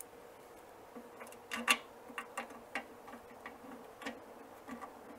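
Faint, irregular metal clicks and ticks, about ten of them with the loudest about a second and a half in, as small screws and bolts are handled and tightened by hand into sheet metal.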